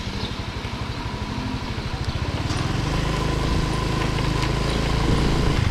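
Small automatic motor scooter's engine running as it rides along a street, with rumbling wind noise on the microphone. The engine gets louder from about two seconds in as the scooter speeds up.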